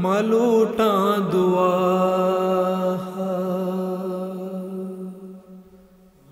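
A singer's voice ends a devotional song (naat) unaccompanied: a quick wavering ornament in the first second, then one long steady held note that fades out near the end.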